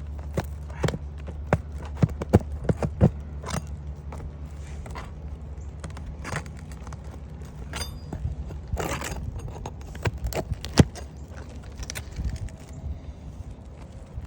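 Roof snake shingle tool prying under asphalt shingles to work out the roofing nails: a string of irregular sharp clicks, taps and scrapes, the loudest knock about eleven seconds in, over a steady low hum.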